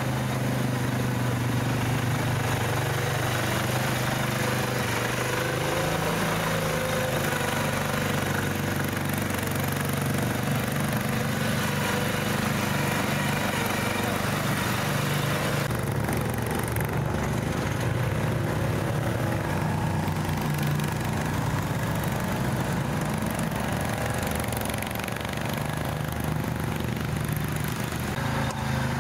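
All-terrain vehicle engine running steadily, with a shift in its sound about halfway through.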